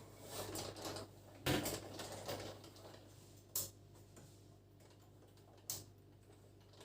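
Parts of a ring light being handled during assembly: some rustling and three sharp clicks, the loudest about a second and a half in, then two more about two seconds apart.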